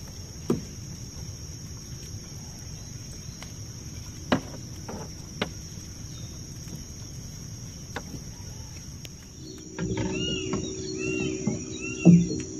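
Steady high-pitched insect drone with a few sharp clicks. About ten seconds in, the sound changes to a bird calling repeatedly, each call a short note rising and falling, over a low steady hum, with a thump near the end.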